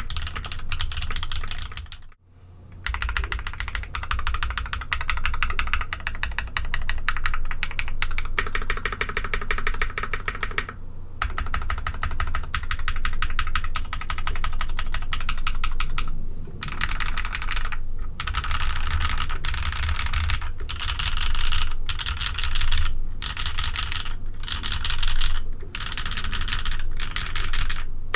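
Fast typing on a mechanical keyboard with ABS keycaps: a dense, clacky patter of keystrokes, broken by short pauses about two seconds in, about eleven seconds in, and several times near the end.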